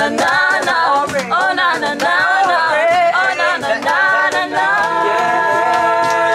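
A group of voices singing a Christmas carol a cappella, without instruments. It ends on a long held chord.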